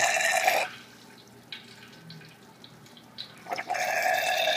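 A homebrew venturi aerator's straw slurping air and water as the siphon flow sucks it through the drilled hole in the hose, a hissing gurgle of vacuuming. It stops sharply under a second in, leaving only a couple of faint clicks, and starts again near the end.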